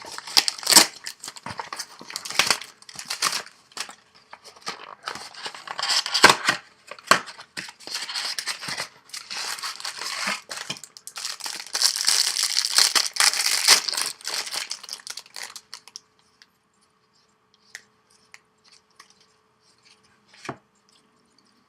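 Trading-card blaster box packaging being torn open and crinkled, with a run of sharp rips and rustling. It stops about sixteen seconds in, and a single click follows near the end.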